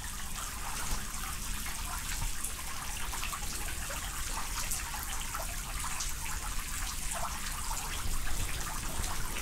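Steady rushing noise of running or trickling water, with faint irregular ticks through it.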